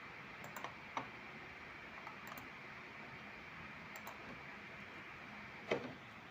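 A handful of faint, separate clicks at a computer, the loudest near the end, over a steady background hiss.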